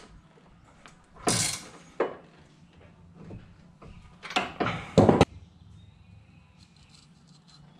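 Clunks and scrapes of steel suspension parts being handled as the steering knuckle is bolted on: a handful of separate knocks and scrapes, the loudest about five seconds in.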